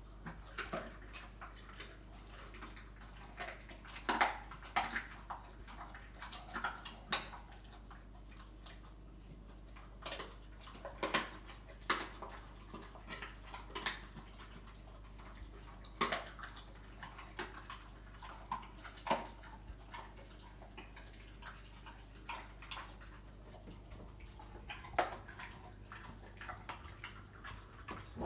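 American Bully dog chewing raw chicken bones: wet mouth smacking with irregular crunches and clicks, some much louder than others.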